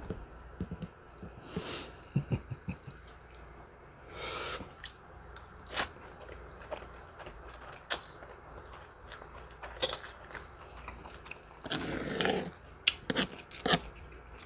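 A person eating, chewing food close to the microphone: scattered wet mouth clicks and smacks, with a few short, louder noisy sounds a couple of seconds in, around four seconds in, and near the end.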